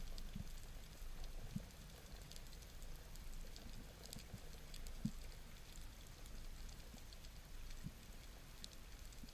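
Underwater ambience picked up by a GoPro in its waterproof housing: faint scattered clicks and crackles over a low rumble, with a few soft low knocks.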